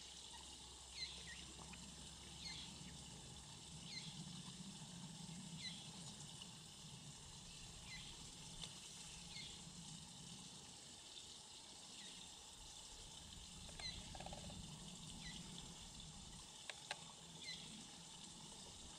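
Moorhen chicks peeping: short, high cheeps repeating roughly once a second.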